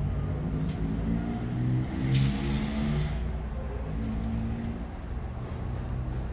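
Road traffic: a car engine running and accelerating over a steady low rumble, with a brief hiss about two seconds in.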